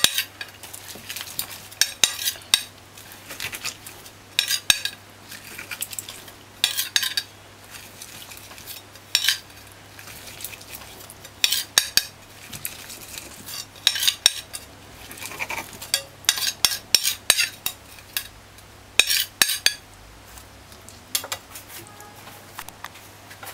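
Steel kitchen knife knocking and scraping on a ceramic plate while garlic is crushed and minced, in irregular short bursts of clicks and scrapes.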